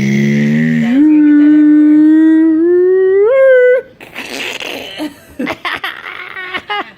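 A person making a hummed airplane noise with their voice for the spoon-feeding trick. It is one long held drone that climbs in pitch after about three seconds and stops abruptly, followed by short breathy sounds and clicks.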